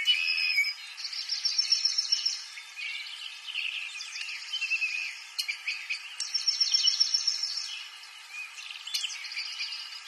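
Several small songbirds chirping and singing, with repeated high, rapid trills and shorter falling calls overlapping throughout.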